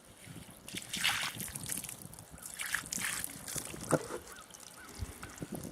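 Water poured and splashed onto a freshly milled sugar maple slab, in a few short splashing spurts.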